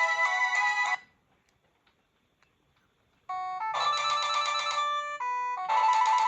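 Corise KS728 mobile phone ringtones. One electronic tune of several notes at once stops about a second in. After about two seconds of silence, the next ringtone starts: a melody of bright electronic notes broken by fast trilling, bell-like stretches.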